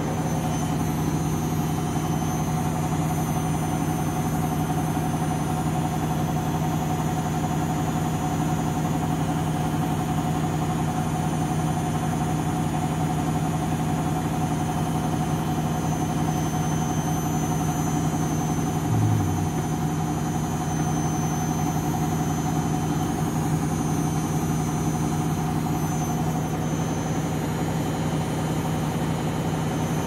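Candy front-loading washing machine in its spin cycle, drum and motor running at a steady speed with an even hum and whine. A brief low bump comes about two-thirds of the way through.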